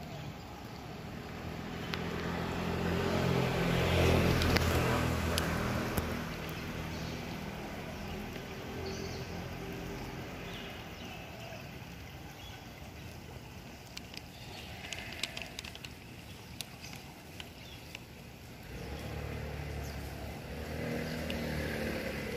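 Road traffic passing: a motor vehicle's engine swells up, loudest about four seconds in, then fades, and another vehicle's engine rises again near the end.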